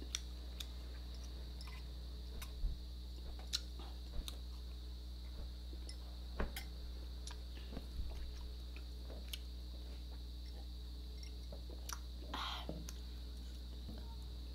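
A person eating close to the microphone: chewing with scattered soft mouth clicks and smacks, over a steady low hum.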